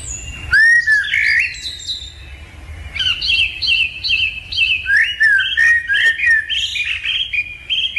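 Several lovebirds chirping and squawking: a few sweeping chirps at first, then from about three seconds in a rapid, overlapping run of short shrill calls.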